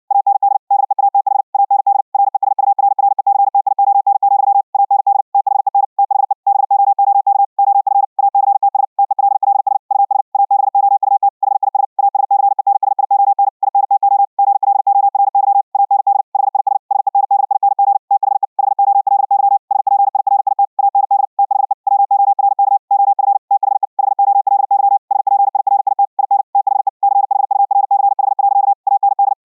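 High-speed (QRQ) Morse code sent at 60 words per minute: one steady-pitched CW tone keyed on and off very fast, broken by short gaps a few times a second between characters and words. This is the audio after a trip through the Vorbis codec over RTP, as a Raspberry Pi 4 receiver hears it.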